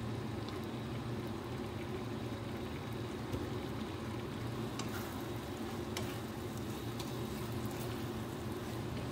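Oyster-sauce mixture simmering and sizzling in a nonstick pan over a steady low hum, with a few light taps of a wooden spatula against the pan in the second half.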